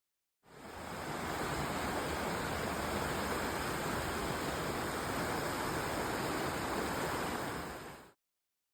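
Steady rush of a waterfall, a continuous even roar of falling water that fades in about half a second in and cuts off near the end.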